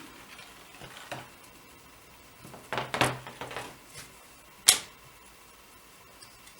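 Knocks and clicks from a small folding tabletop eight-shaft loom being handled: a few light knocks, a cluster of clattering about three seconds in, and one sharp click just before five seconds.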